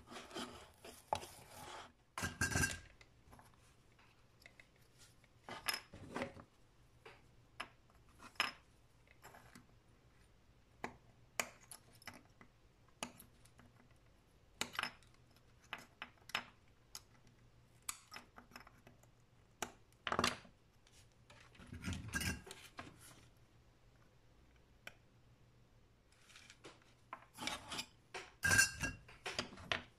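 Scattered sharp clicks and taps of small electronic components, wire leads and flush cutters being handled on a wooden workbench, with snips of component leads being trimmed; the clicks come in small clusters, the busiest near the start and near the end.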